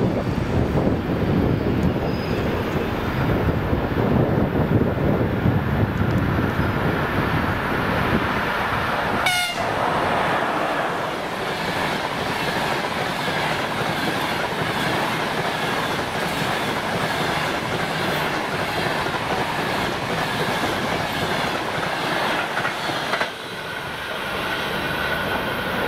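An EP2K electric passenger locomotive and its long train of passenger coaches pass at speed. The heavy rumble of the locomotive and wheels gives way to the steady clatter of coach wheels over the rail joints, with a faint ringing hum. There is a brief horn toot about nine seconds in, and the noise drops suddenly near the end as the last coach goes by.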